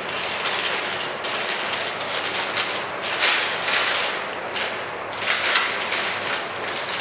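Plastic piping bag crinkling and rustling in gloved hands as the nozzle is worked down to the bag's tip, in uneven surges that are loudest about three and five seconds in.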